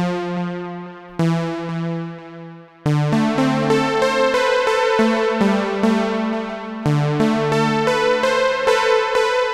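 Analog-style synth patch in Xfer Serum, low-pass filtered and run through delay and reverb. It plays two held chords, then from about three seconds in a faster run of repeated notes that each fade out.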